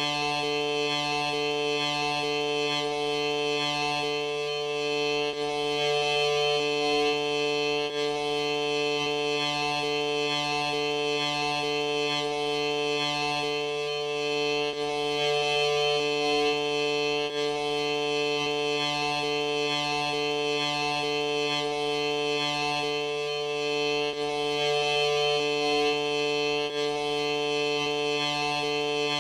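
Steady droning music of long held tones. One lower tone drops out briefly about every nine to ten seconds, so the texture repeats in a loop.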